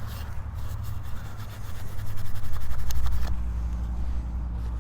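Steel wool wet with lighter fluid scrubbing a tarnished brass belt buckle in quick back-and-forth strokes, loudest from about two seconds in, over a steady low rumble.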